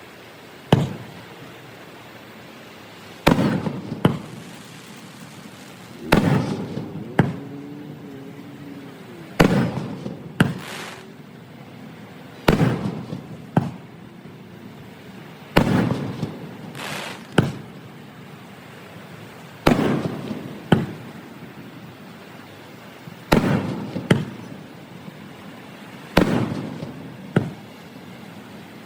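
Aerial fireworks bursting, a sharp bang every second or two, mostly in pairs about a second apart, each trailing off in an echoing rumble. The recording is sped up to double speed.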